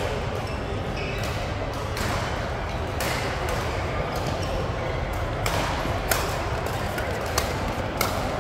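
Badminton rackets striking shuttlecocks: sharp, irregular smacks from several courts at once, over a steady hubbub of players' voices echoing in a large hall.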